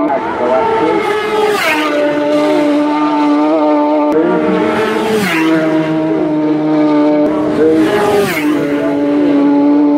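Superbike-class race motorcycles going by at full racing speed, three times about three to four seconds apart. As each one passes there is a sharp rush of sound and the engine's high-revving note drops in pitch. Between passes the engine note of the next bike holds steady.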